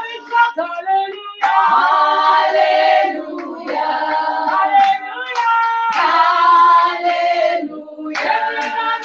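A small group of women singing a worship song together in long held phrases, with hands clapping along.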